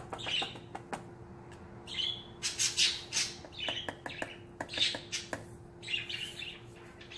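Pet birds chirping, short calls coming about once a second, with a few light clicks mixed in.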